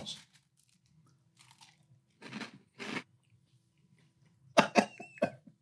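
Dry, crispy frosted cereal crunching as a man chews a handful: two crunches a couple of seconds in, then several quicker chewing sounds near the end.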